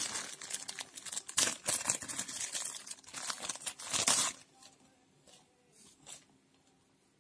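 Packaging crinkling and tearing as it is handled and opened for about four seconds, then dropping to a few faint clicks and rustles.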